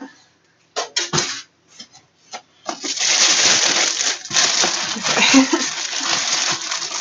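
Packing being handled and pulled out of a box: a few clicks and knocks, then from about three seconds in a loud, continuous rustling and crunching of styrofoam and plastic wrap.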